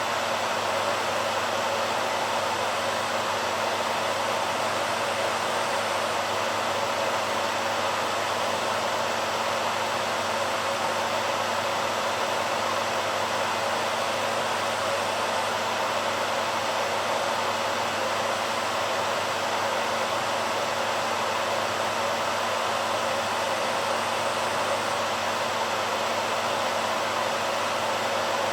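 A BaByliss hair dryer running steadily: an even rush of air with no change in level.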